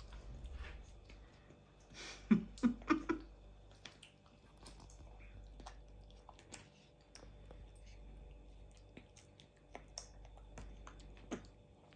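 Baby hamadryas baboon chewing cherry tomatoes, with soft wet mouth smacks and small clicks scattered throughout. A few louder short sounds come close together between about two and three seconds in.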